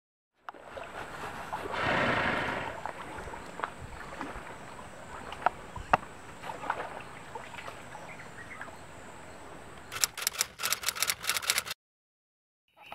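Faint outdoor ambience with a soft rush swelling about two seconds in and a few light clicks. Near the end comes a quick run of typewriter key strikes, a sound effect for a typed-out title.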